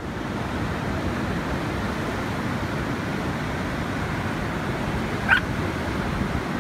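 Waves breaking along a sandy beach, a steady rushing wash, with wind buffeting the microphone. A single short, high call cuts through about five seconds in.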